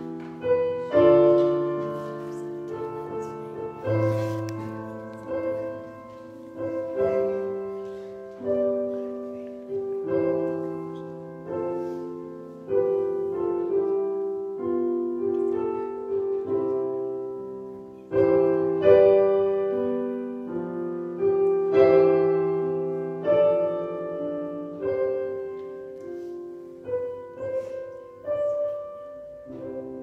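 Slow piano music: chords and melody notes struck about every one to two seconds and left to ring and fade.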